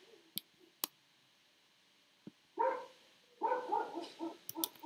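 A dog barking: one bark about two and a half seconds in, then a quick run of several barks near the end. A couple of sharp computer mouse clicks come in the first second.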